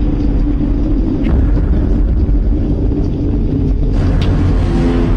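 A loud, steady, low droning rumble with a humming tone: the unexplained 'strange sound' that people are trying to locate, heard as close by. About four seconds in it turns brighter and a higher hum joins it.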